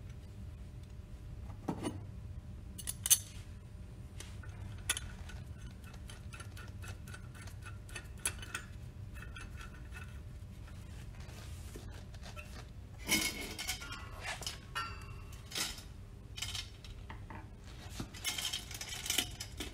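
Metal parts clinking and clicking as a pump's steel fork tool and coupling guards are handled and fitted with a screwdriver: scattered sharp clicks with one loud clack about three seconds in and busier bursts of clinking past the middle and near the end. A steady low hum runs underneath.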